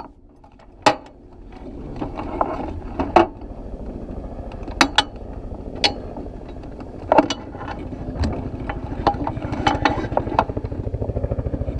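Two-seat dragster's engine running at idle, a low rapid pulsing that grows louder near the end. Sharp clicks and knocks come from the cockpit controls being worked.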